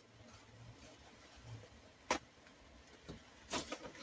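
Paper towels rustling twice as rain is wiped off, about two seconds in and again near the end, against a faint quiet background.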